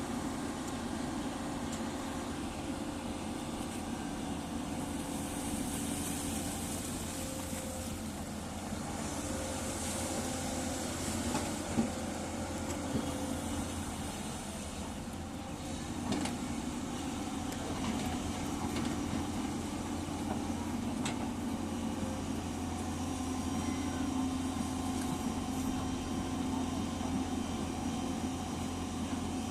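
Diesel excavator engines running steadily, with a sharp knock about twelve seconds in and another about sixteen seconds in.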